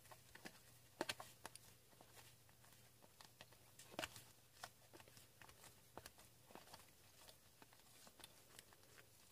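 Faint, scattered clicks and taps of trading cards being flipped through and set down by hand, with a couple of sharper clicks about a second and four seconds in.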